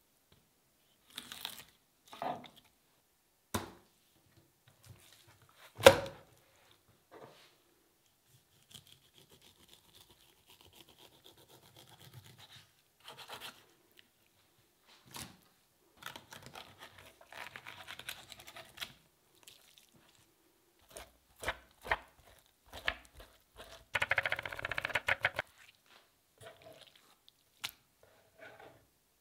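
A knife filleting and skinning halibut on a plastic cutting board: scattered scraping, rubbing and tearing strokes as flesh is cut from the skin. There is a sharp knock about six seconds in, and a quick run of rasping strokes near the end.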